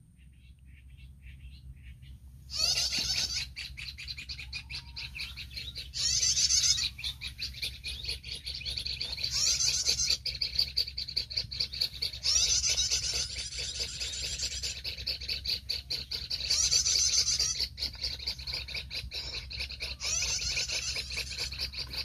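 Bird-call lure recording played from a phone: a commotion of rapid, harsh chattering bird calls that starts suddenly about two and a half seconds in and keeps swelling into loud bursts every few seconds, used to draw reed warblers down.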